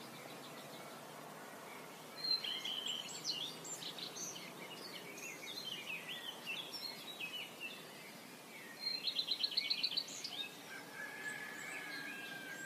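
Wild birds calling over a faint outdoor background: a cluster of high chirps begins about two seconds in, a rapid trill of evenly repeated notes comes around nine seconds in, and a long even whistle follows near the end.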